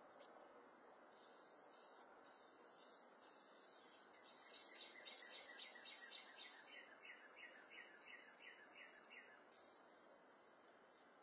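Faint bird song: a bird repeats a quick series of short down-slurred notes, about three a second, for several seconds midway. Bursts of high buzzing start and stop around it.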